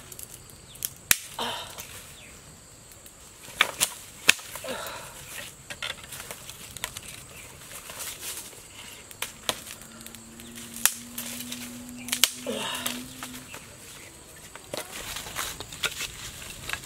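A campfire of dry sticks being fed and stoked: sharp cracks and snaps of dry wood, several of them, some in quick pairs, between stretches of rustling in dry leaves.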